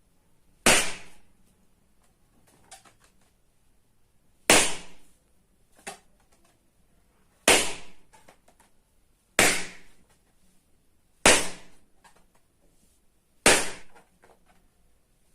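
Balloons bursting one after another: six sharp, loud pops spaced about two to four seconds apart, with fainter rubbery handling noises between them.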